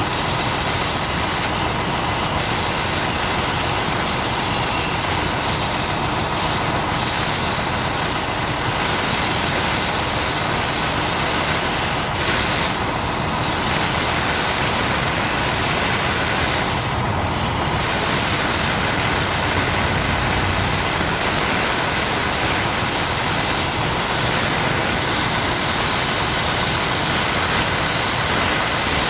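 Compressed air hissing steadily from a leak at a semi truck's transmission air solenoid.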